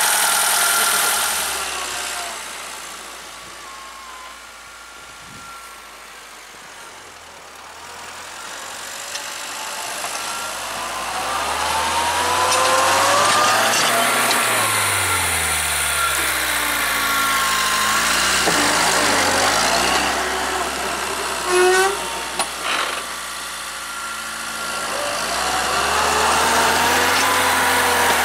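A homemade tractor's VAZ 'classic' inline-four engine, running on gas (LPG), working with its throttle rising and falling as the tractor's front blade pushes snow. It is quieter for several seconds near the start, then louder again. A few short sharp knocks come a little past the middle.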